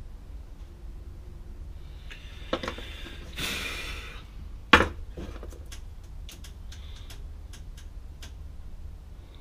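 A short puff of breath blown across a plaster of Paris mold in a plastic tray, then one sharp knock as the tray comes down on the wooden bench, followed by a string of light clicks as it is handled.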